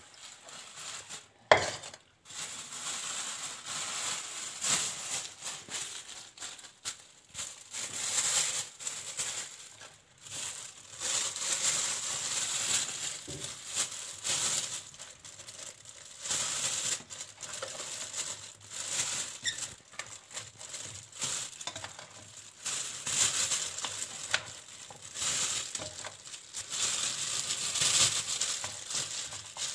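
Thin plastic freezer bag crinkling and rustling as it is handled and filled with fresh strawberries by hand, in an irregular run of small crackles. A sharp click about a second and a half in.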